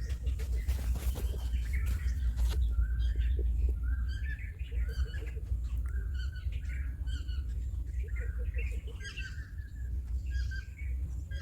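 Birds chirping and calling, many short repeated notes, over a steady low rumble, with a few sharp clicks in the first couple of seconds.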